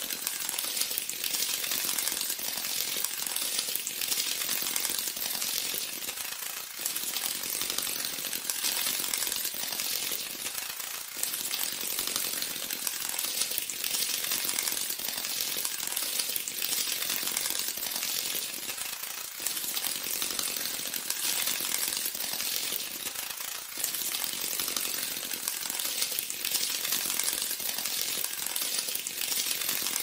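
Beetle sound: a dense, continuous high crackle of rapid fine clicks, with slight dips in loudness every few seconds.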